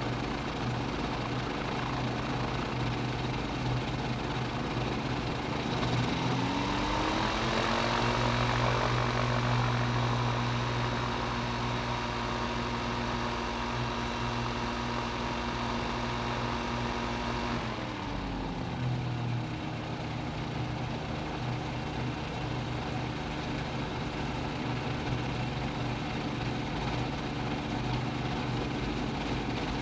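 CGS Hawk ultralight's engine and propeller running steadily. Throttle comes up about six seconds in, holds at the higher pitch, then is pulled back just before twenty seconds.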